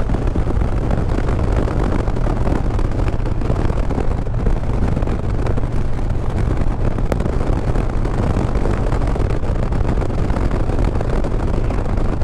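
Harley-Davidson V-twin engine running steadily at cruising speed, with wind rushing over the microphone.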